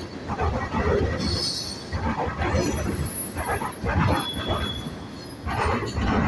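Cars of a Norfolk Southern mixed freight train rolling past, a low rumble that swells and drops unevenly. Now and then a faint high-pitched wheel squeal rises above it.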